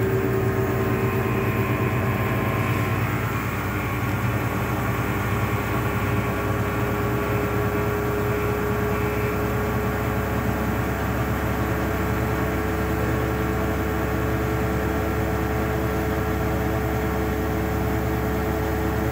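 Beko BPro500 front-loading washing machine in its final spin on a synthetics cycle: a steady motor whine over a low drum hum.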